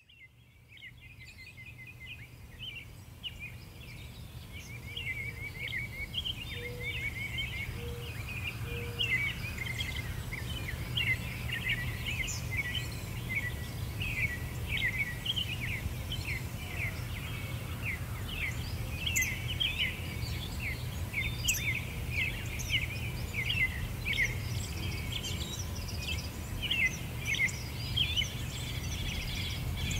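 Birds chirping in a dense chorus of short calls over a steady low hum, fading in from silence at the start.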